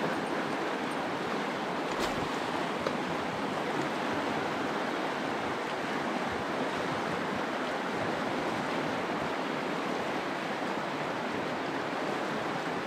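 Mountain river water rushing steadily over the riverbed, with a small click about two seconds in.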